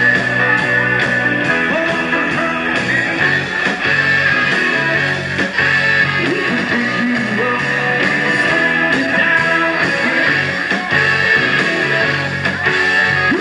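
Rock band playing live, with electric guitar to the fore over a full band.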